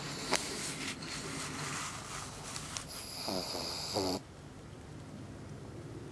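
Pug snoring in its sleep, with a quick rattling snort about three seconds in; the sound drops away abruptly after about four seconds.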